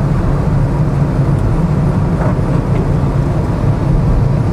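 Steady engine and tyre noise inside a Ford Figo's cabin as it drives along a wet road, with a low hum under an even rushing noise.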